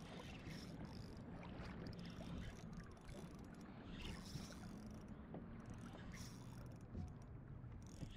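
Water lapping against the hull of a plastic sit-on-top kayak, a low steady wash with short hissy gusts every second or two.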